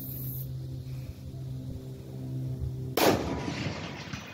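A single shot from a Remington M24 bolt-action sniper rifle about three seconds in: one sharp report that then trails off in echo.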